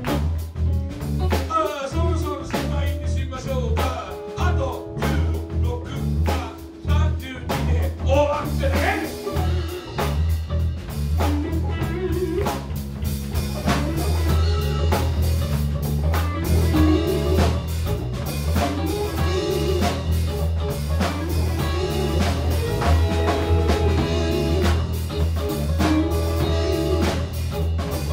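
Live band playing amplified: drum kit, electric bass and electric guitars. The playing grows fuller and steadier about twelve seconds in.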